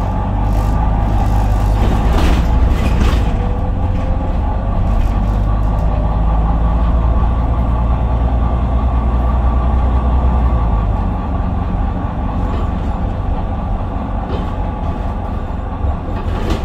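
Inside a moving city bus: a steady low engine drone with road noise from the tyres. The low drone drops away about two-thirds of the way through while the road noise carries on.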